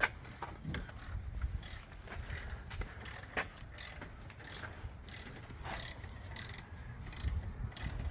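Hand socket ratchet clicking in short, irregular runs as a bolt is turned, over a low background rumble.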